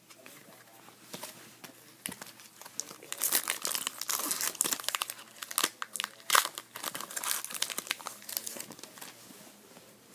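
Foil trading-card pack wrapper being torn open and crinkled by hand, a dense run of crackling that swells about three seconds in and fades near the end.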